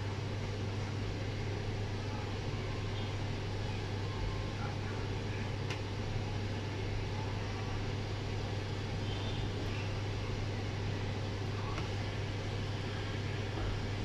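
A steady low hum with an even hiss over it, from running equipment; a faint click about six seconds in.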